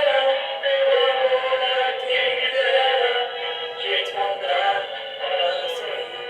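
A song with a heavily processed, synthetic-sounding singing voice over music, sounding thin, with nothing above the mid-treble.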